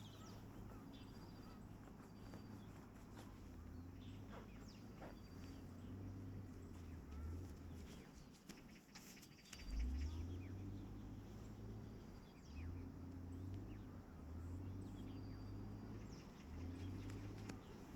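Faint forest ambience: scattered high bird chirps and insect calls over a low, uneven rumble.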